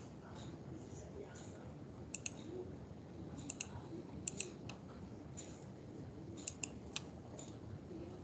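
Computer mouse clicking: short sharp clicks, often in quick pairs, scattered every second or so over a faint steady hiss.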